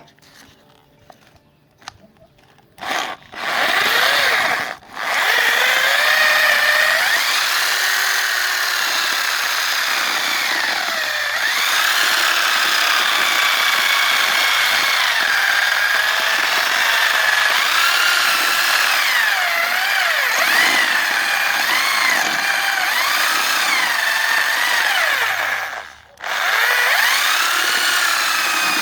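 Homemade banana grinder driven by an old electric drill motor, starting up about three seconds in and running loudly with a whine whose pitch keeps wandering up and down. It cuts out briefly twice, about five seconds in and again near the end, then starts again.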